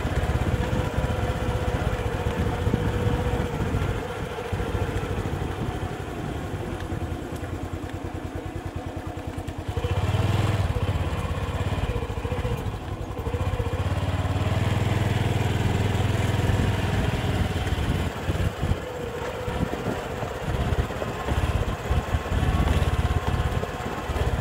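Motorcycle engine running at low speed while ridden along and down a bridge ramp. Its pitch holds steady, then shifts a little about halfway through as the throttle changes, over an uneven low rumble.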